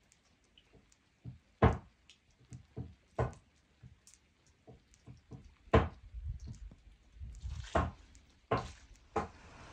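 Footsteps on wet, muddy ground: an uneven series of soft thuds and clicks, a few heavier steps roughly a second or so apart with lighter ones between.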